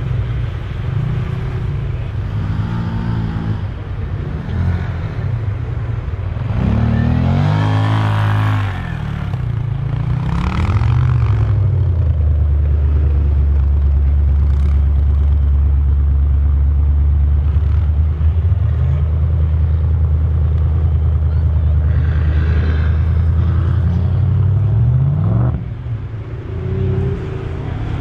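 LS6 V8 in a Nissan Patrol revving hard several times, its pitch rising and falling, then holding a loud steady lower note for about twelve seconds before revving up again near the end.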